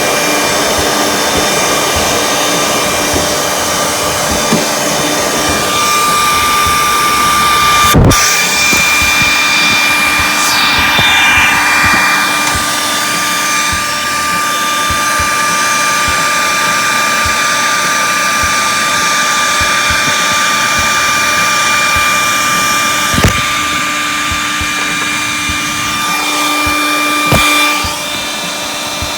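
Handheld hair dryer running steadily with a motor whine, blowing hot air to soften old glue so a cover can be pried off. A sharp knock about eight seconds in.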